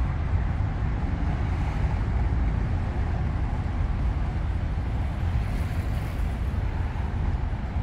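Steady city street ambience: an even, low rumble of road traffic.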